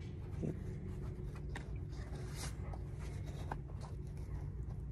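Faint clicks and rubbing from hands working a disassembled red plastic chalk line reel, its case and string being handled, over a steady low hum.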